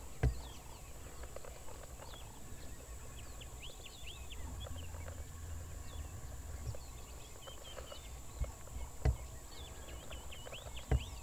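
Small birds chirping in short, scattered calls over a thin, steady high tone, with a low rumble and a few sharp knocks, the loudest just after the start and about nine seconds in.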